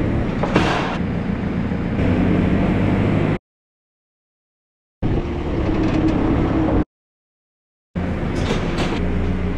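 JCB telehandler's diesel engine running steadily under way, heard from the driver's seat. The sound cuts off suddenly to silence twice, a little past a third of the way in and again about three-quarters through, each time for a second or so.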